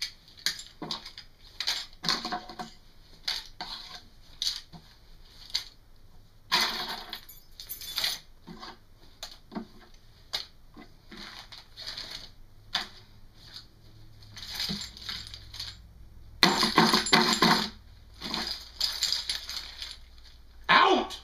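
A carry bag full of everyday-carry gear being handled and shaken, its contents rattling in a string of short clatters. There are louder stretches about seven seconds in and again about seventeen seconds in.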